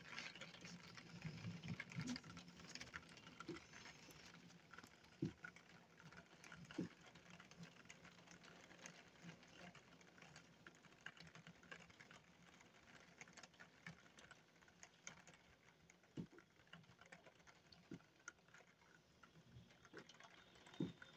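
Faint patter of thunderstorm rain, with scattered single drops ticking irregularly; it is a little busier in the first few seconds, then thins out.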